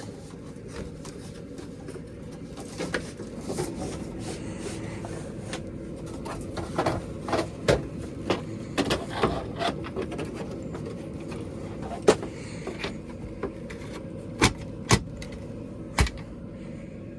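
Sharp clicks and knocks of tools and sheet-metal parts being handled while a gas furnace is taken apart, over a steady low hum.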